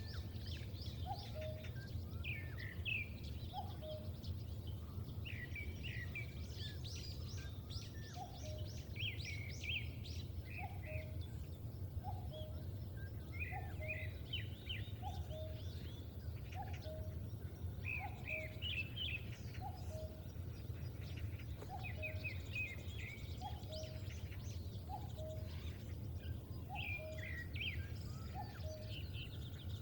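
Birds calling in an open field: many small birds chirp and twitter high up, while one bird repeats a low two-note falling call about every second and a half, over a steady low rumble.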